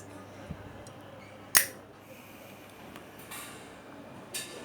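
The lid of a WWII steel-case Zippo lighter clicking, with one sharp metallic click about one and a half seconds in and a softer click near the end. The steel case gives its clicks a different tone from a brass Zippo's.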